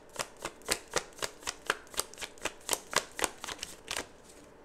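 Tarot deck being shuffled by hand: a steady run of short card slaps, about four a second, stopping near the end.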